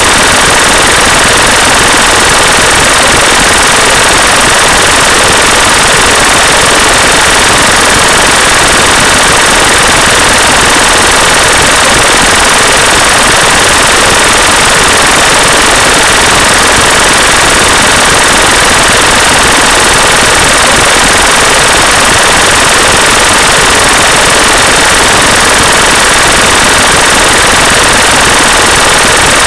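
Loud, steady hiss-like noise with a rough, crackling grain and a few faint steady tones within it: the masking noise layer of a subliminal affirmation track, unchanging throughout.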